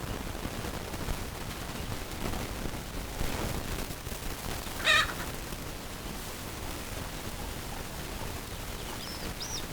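A chicken gives one short, loud squawk about halfway through over a steady low background rumble; two faint, high chirps follow near the end.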